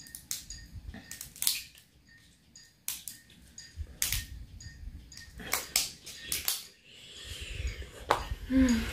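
Kitchen scissors snipping and crunching through a boiled blue crab's shell: a series of irregular sharp snips and cracks, a second or so apart.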